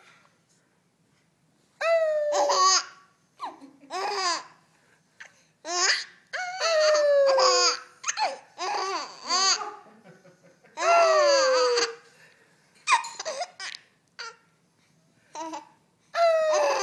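Baby laughing and babbling in repeated bursts, with short silences between them.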